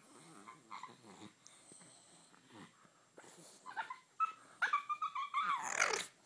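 Bulldog puppy making whiny play noises while playing: faint at first, then a run of short pitched whimpers and yips from about four seconds in, loudest near the end with a long call that falls in pitch.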